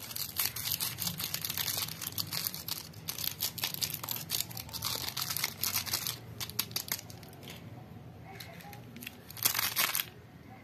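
Paper-and-plastic stick packet crinkling as it is squeezed and tapped to shake coffee granules onto slime, a dense run of small crackles for the first six seconds, then sparser. Near the end a louder, brief crinkle as a Coffee-mate creamer stick packet is handled.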